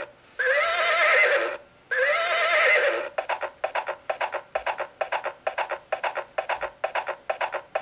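A horse whinnying twice, each call rising and then trembling, followed from about three seconds in by a quick, even clip-clop of hooves.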